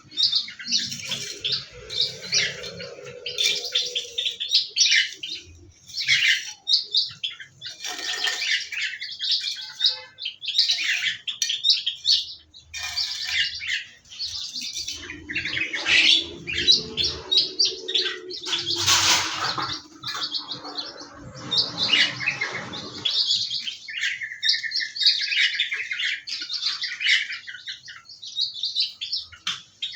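Many small aviary birds chirping and twittering in a dense, continuous chorus of quick high calls, with some wing flapping. A low hum comes in twice, near the start and around the middle.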